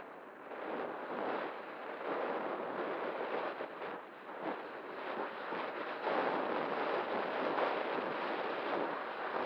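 Wind noise on the microphone: a rushing, gusting hiss that swells and fades, growing louder about six seconds in.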